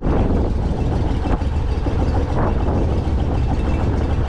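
Long-tail mud motor running steadily, pushing a flat-bottomed boat along under way.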